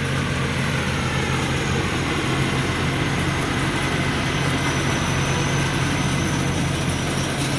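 Combine harvester's diesel engine running steadily under working load, a constant low hum with a thin, faint high-pitched whine over it.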